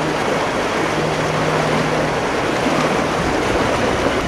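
Loud, steady rush of flowing floodwater, with a faint low hum under it that fades out about halfway through.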